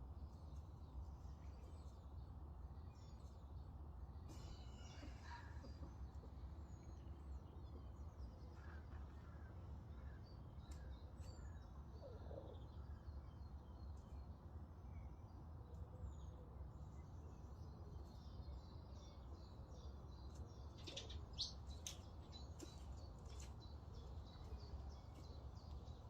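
Faint bird chirps, scattered and short and high-pitched, with a busier run of them about three-quarters of the way through, over a low steady rumble of background noise.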